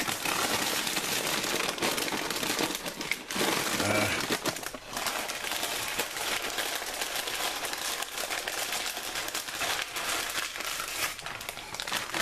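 Plastic bag of corn tostadas crinkling and rustling as it is handled, with many small crackles.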